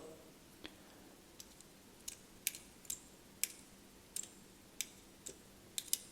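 Light, sharp clicks and taps, about a dozen at irregular intervals, from small metal parts of a vintage Cygnus automatic petrol lighter being handled and fitted into place.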